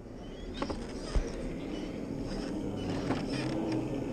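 Brushless motor and geared drivetrain of a scale RC crawler truck whirring steadily as it climbs, with its tyres crunching over dirt and rock and a few light knocks.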